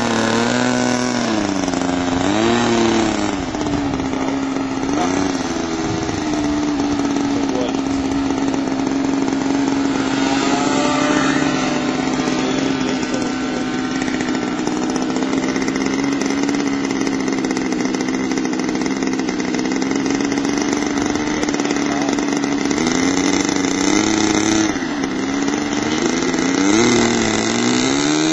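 A model aircraft engine running steadily at high revs, its pitch swooping up and down briefly near the start, about five seconds in, and again near the end.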